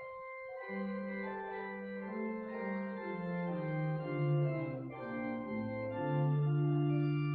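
Church organ playing the postlude: sustained chords over a slowly descending bass line, swelling into a louder held chord about six seconds in.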